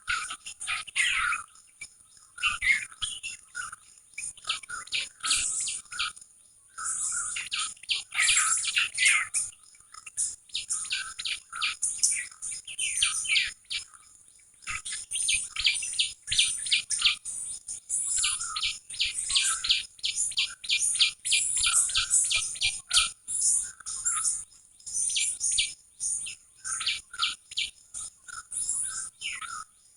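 Small songbirds chirping, in runs of quick, repeated high notes with short pauses between the runs.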